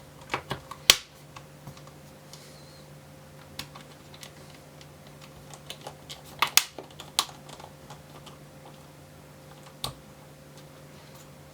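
Small sharp clicks and taps of a screwdriver and its bit working the retained screws of a laptop's plastic base cover. They come in short clusters: several near the start, a few a little past halfway, and a single one near the end, over a faint steady hum.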